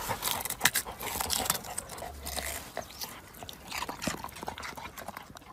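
A dog rooting among leafy plants and soil, biting and mouthing a white root vegetable: irregular rustling with many sharp crunching clicks.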